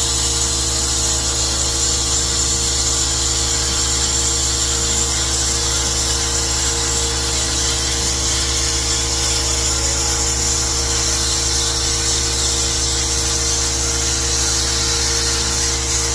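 A hand-held power tool cutting steel: a steady hiss over a low hum that runs without a break.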